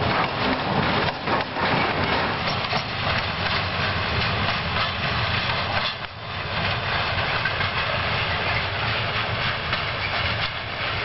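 Freight train wagons rolling past, their wheels clacking over the rail joints, with a few sharp clacks in the first two seconds and a brief lull about six seconds in.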